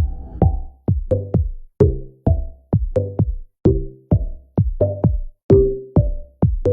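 Electronic background music with a steady drum-machine beat, about two kick hits a second.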